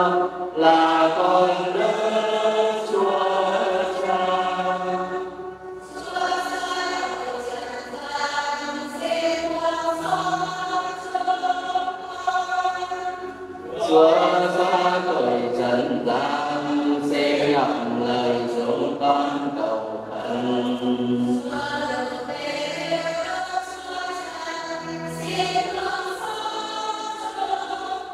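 Church choir singing a hymn in long held phrases, with a short break between phrases about six seconds in and another near fourteen seconds.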